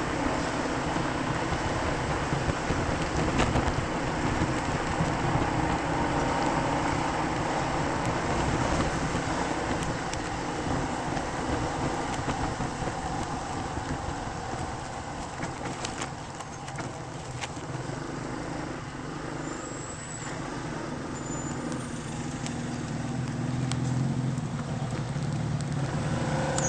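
Steady road traffic noise with vehicle engines running.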